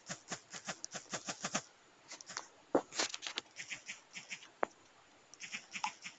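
Quick, irregular taps of typing on a smartphone's touchscreen keyboard, in runs of several taps a second broken by short pauses.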